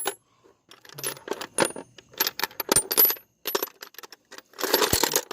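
Metal hand tools, such as sockets and wrenches, clinking and clattering as they are rummaged through and picked out of a toolbox. The clicks come in irregular clusters, with a denser clatter near the end.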